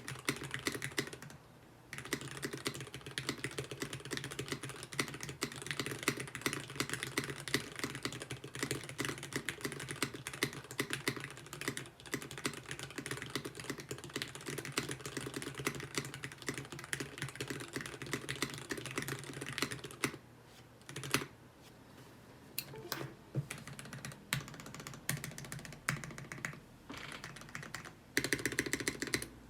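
Custom 60% mechanical keyboard (CannonKeys Brutal 60, FR4 plate, milky-top Gateron Ink Red linear switches lubed with 205g0) being typed on, recorded on an iPhone microphone. Fast continuous typing gives way, about two-thirds of the way through, to a short pause and slower scattered keystrokes, then a quick dense flurry near the end.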